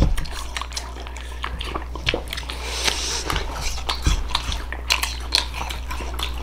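Two people biting into and chewing slices of sour green apple, with many short crisp crunches and wet mouth sounds. A low thump comes at the start, and another about four seconds in.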